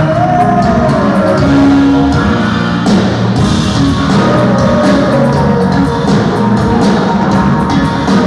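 A live rock band plays through the PA at a soundcheck: guitars and drums in a steady beat, with a voice singing long held notes, one near the start and another about four seconds in.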